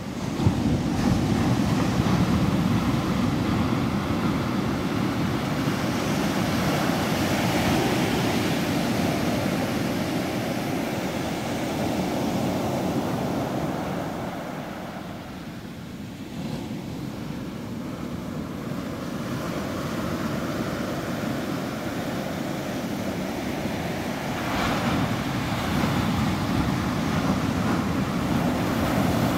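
Ocean surf breaking on a sandy beach: a continuous wash of waves that swells and eases, dipping quietest a little past halfway.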